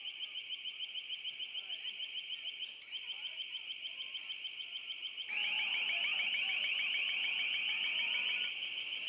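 An electronic alarm sounding a fast, steady pulsing high beep, about five or six pulses a second. It becomes clearly louder about five seconds in.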